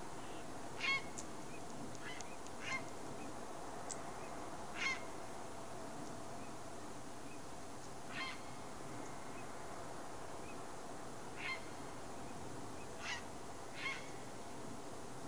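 Grey heron giving about eight short, harsh calls at irregular intervals, the loudest about a second in and near five seconds in.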